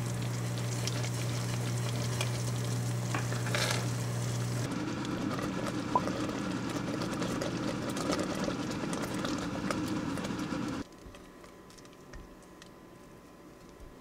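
Thick blueberry jam boiling in a stainless steel pot, bubbling and sputtering while a silicone spatula stirs and scrapes through it. The sound drops off sharply about eleven seconds in, leaving only faint background noise.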